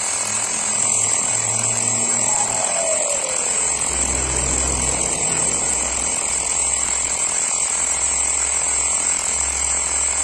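Xiaomi portable electric tire inflator running steadily as it pumps up a motorcycle tire, the pressure climbing past 22 psi. A tone falling in pitch passes about two seconds in.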